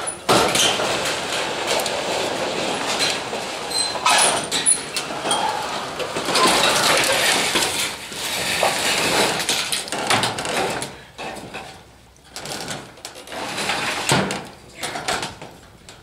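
Corrugated sheet-metal roofing on a wooden frame rattling, scraping and clanking as the fallen roof section is tipped over and shifted. The noise is loud and dense for about the first ten seconds, then thins to scattered knocks and clanks.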